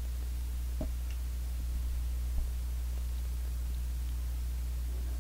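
Steady low hum with a couple of faint clicks from a ratchet wrench loosening a motorcycle frame bolt, one about a second in and a small knock a little after two seconds.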